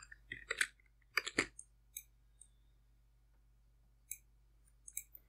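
Scattered clicks of a computer mouse and keyboard: a few in quick succession in the first second and a half, then single faint clicks spaced out.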